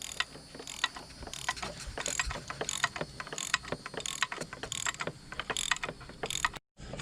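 A ratchet wrench clicks in a steady back-and-forth rhythm, about one stroke every 0.7 s, as it tightens a strut coil-spring compressor to compress the spring. The sound drops out briefly near the end.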